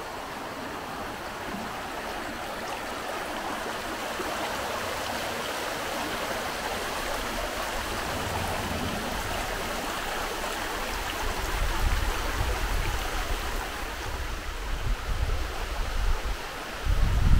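Steady rush of running water from a glen stream. In the second half there is irregular low buffeting on the microphone.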